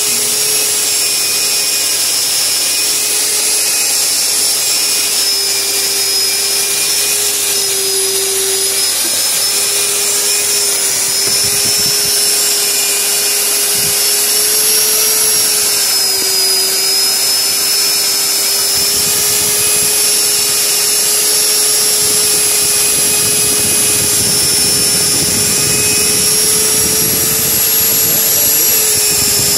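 Euroboor ECO.50S magnetic drill running with its brushed 1200 W motor whining steadily while an annular cutter bores into thick steel plate. The pitch sags briefly a few times as the cutter takes load.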